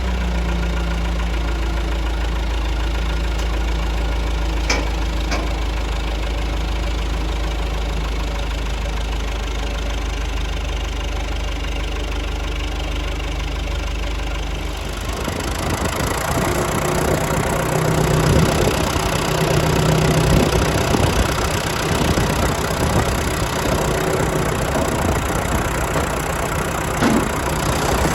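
Engine idling steadily, then about halfway through it turns louder and rougher, as if put under load or revved, and keeps running that way.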